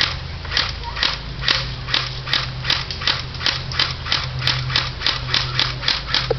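Footsteps crunching on dry ground at a steady walking pace, about two to three steps a second.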